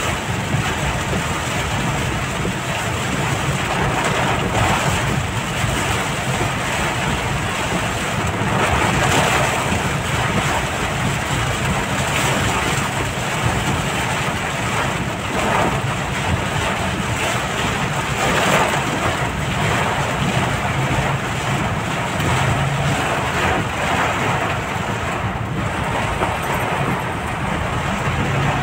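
Heavy rain drumming on a car's roof and windshield, heard from inside the moving car: a steady, dense hiss with brief swells, over the low rumble of the car.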